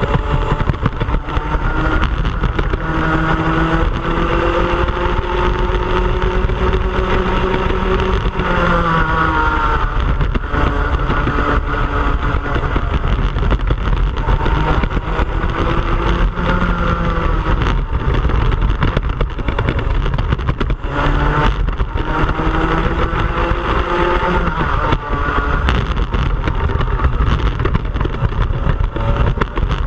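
Onboard sound of a Club100 kart's 100cc two-stroke engine racing: its pitch climbs as it accelerates, then drops as it slows for corners several times, over wind rumble on the microphone.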